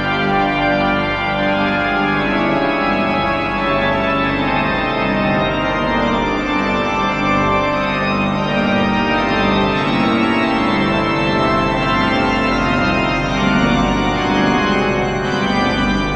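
Organ played with full, sustained chords across the manuals, many notes sounding together at a steady loud level.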